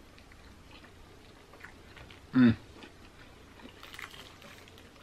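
A single short, loud burp about halfway through, falling in pitch, after a drink from a cup. Around it, faint mouth sounds and hands pulling apart a fried chicken wing.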